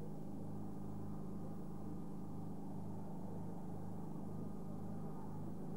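A steady low hum with a faint pulse about twice a second underneath it.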